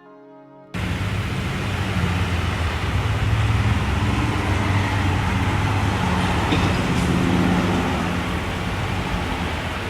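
Brass music cuts off under a second in, giving way to steady motor vehicle road noise: a low rumble under a broad hiss.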